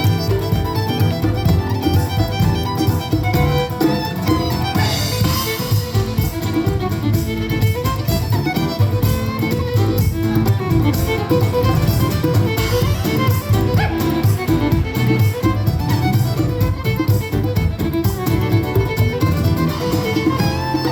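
Live band music led by a fiddle, with a steady beat and other instruments underneath.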